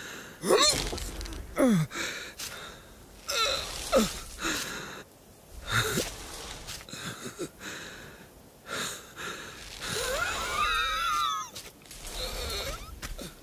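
A cartoon sheep's wheezing breaths and short calls that fall in pitch, with a longer wavering cry about ten seconds in.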